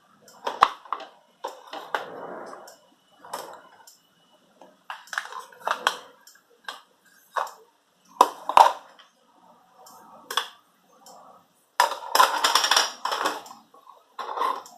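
Hard kitchen items being handled: a string of irregular clinks and knocks, with a longer rattling burst about twelve seconds in.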